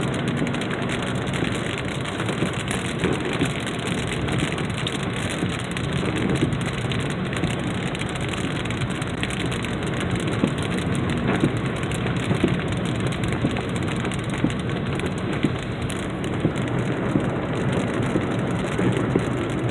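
Heavy rain falling steadily, a dense hiss full of small drop impacts.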